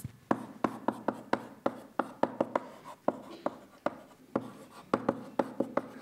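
Chalk tapping and scratching on a blackboard as a word is written: a quick, uneven run of sharp little taps, several a second.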